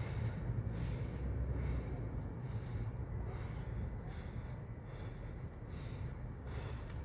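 A man breathing hard through the nose, one huff of breath about every three-quarters of a second, over a steady low rumble.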